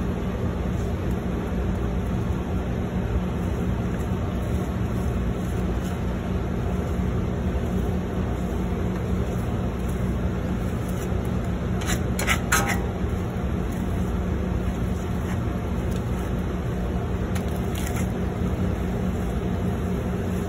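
Steady low drone of commercial kitchen machinery with a constant hum running through it. A few quick scrapes of a metal spatula on the flat-top griddle come about twelve seconds in.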